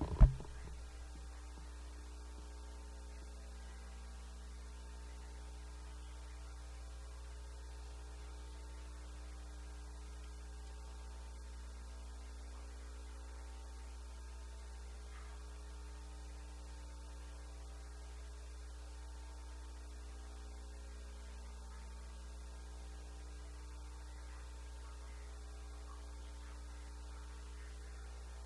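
Steady electrical mains hum with a row of overtones, opened by a single brief knock just after the start.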